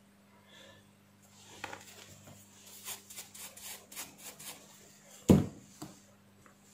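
Small plastic hair-trimmer head parts being handled and rubbed clean: a run of light scraping and clicking, then one sharp knock about five seconds in.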